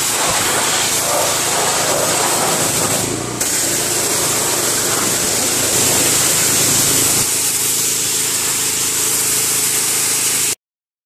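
Gas pressure washer with a Honda engine running steadily while its high-pressure jet sprays concrete, giving a loud hiss over the engine hum. There is a short dip and a cut about three seconds in.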